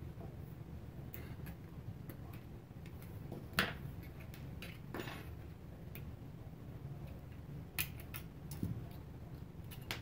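Small plastic clicks and snaps as a blue plastic LED cap-light housing is pried open and taken apart by hand. The clicks are irregular, with a few sharper snaps among them, over a steady low hum.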